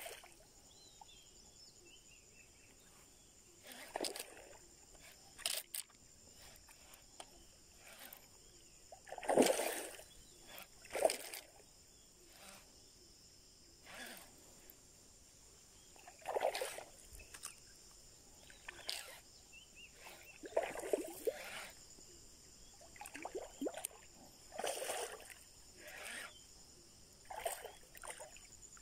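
A fishing lure twitched and retrieved across the surface of a river, making short, irregular splashes and sloshes, one every one to three seconds.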